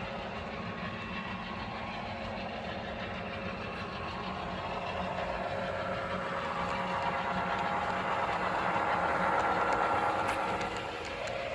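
Model trains running on the layout's loops, a steady motor and wheel noise that grows louder as a train comes close, peaks about ten seconds in, then drops away.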